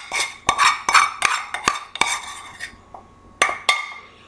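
Metal utensil knocking and scraping against a metal frying pan to empty sautéed onions and garlic into a saucepan: a quick run of ringing clanks for about two seconds, then three more spaced strikes.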